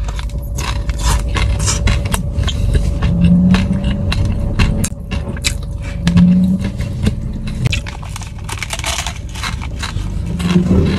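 Crinkly plastic snack packet being torn open with the teeth and worked with the hands, with crunchy chewing of the snack, a dense irregular crackle throughout.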